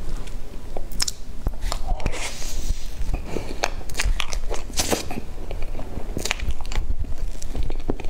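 Close-miked eating sounds: a metal spoon cutting into cream-frosted sponge cake and mouthfuls of cake and whipped cream being chewed, with many small sticky clicks.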